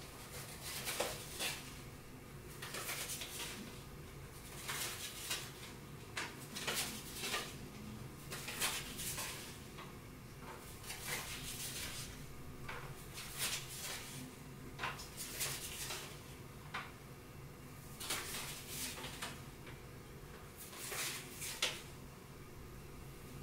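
Playing cards being handled and set into place on a house of cards: clusters of light, papery clicks and slides every second or two.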